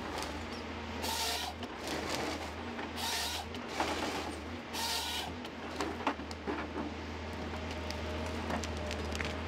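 Heavy forestry machine running with a steady low engine hum, broken by three short hissing bursts about two seconds apart, with scattered knocks and ticks.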